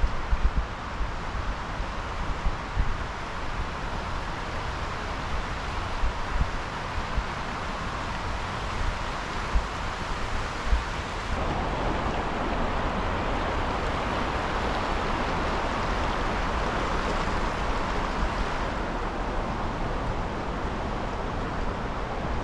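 Steady outdoor rushing noise with wind buffeting the microphone in low, irregular thumps. About eleven seconds in, the rushing suddenly grows louder and fuller, then thins somewhat a few seconds before the end.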